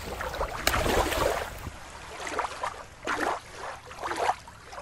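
Water lapping and sloshing in irregular surges.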